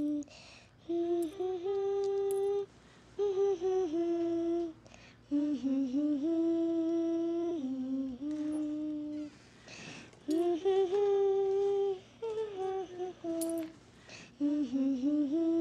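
A female voice humming a slow, simple tune in short phrases of held notes, with brief pauses between them.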